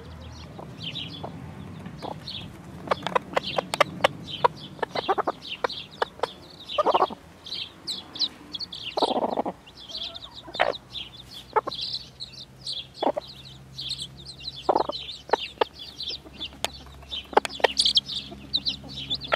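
Appenzeller Spitzhauben hen and her chicks: the chicks keep up short high peeps several times a second, and the hen gives a few lower clucks now and then, the loudest at about seven and nine seconds in.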